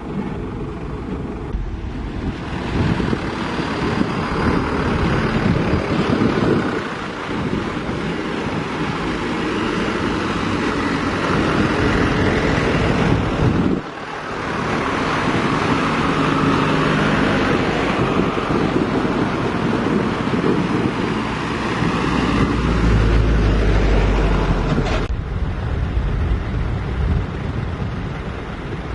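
Heavy diesel machinery running steadily, with a strong low rumble swelling about 23 seconds in, and wind buffeting the microphone throughout.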